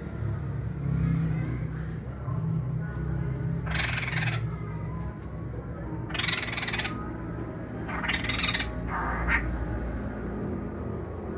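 Caged poksay hongkong (a laughingthrush) giving four harsh, raspy calls, the last two close together.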